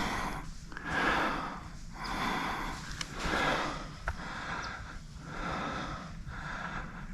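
Heavy breathing close to the microphone, about one breath a second in a steady rhythm.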